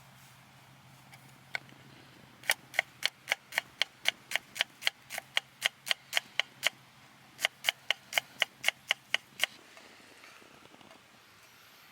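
A knife chopping on a cutting board at a steady pace of about four strokes a second, in two runs with a short pause between them.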